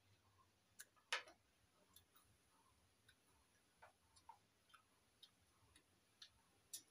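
Faint, scattered crunches and clicks of crisp fried papad being broken and chewed, with one louder crack about a second in.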